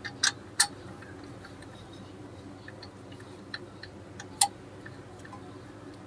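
Sharp metallic clicks and light taps of hand tools and metal parts being handled at a car's drive shaft and bracket. Two loud clicks come near the start and one about four and a half seconds in, with scattered smaller ticks between, over a faint steady hum.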